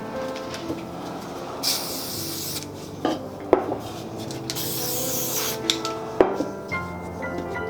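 Spray paint can hissing in two bursts of about a second each, with sharp clicks and rubbing between them, over background music.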